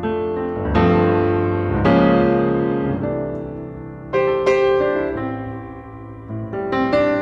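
Piano music: struck notes and chords that ring and fade, with new chords about a second in, near two seconds, past four seconds and near the end.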